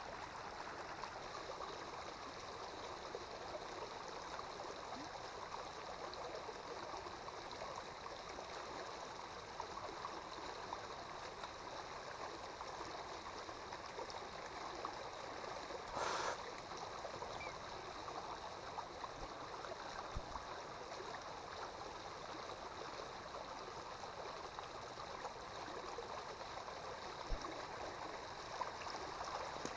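Steady rush of water flowing along a small irrigation channel, with a short burst of noise about halfway through.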